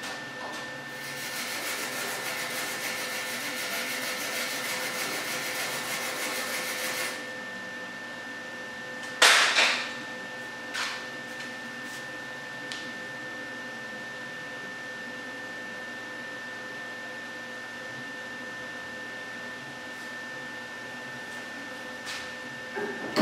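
MIG welder running a bead for about six seconds, with a steady sizzling crackle. About nine seconds in comes a brief loud burst of noise, a smaller one follows a second later, and a faint steady hum lies underneath.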